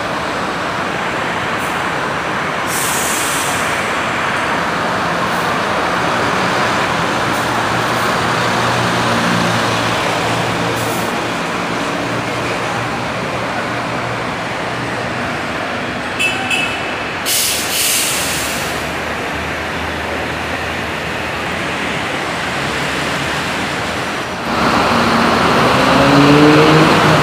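Diesel engine of a Caio Apache VIP II city bus on a Mercedes-Benz OF-1722M chassis running as the bus moves through the terminal, with short air-brake hisses about 3 s in and again around 17–18 s. Near the end, louder, a bus engine speeds up with rising pitch.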